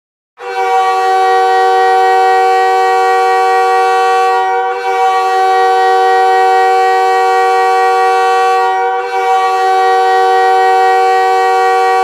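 Montréal Canadiens' 2011–13 arena goal horn sounding a loud chord of several tones at once, in three long blasts of about four seconds each, with short breaks between them.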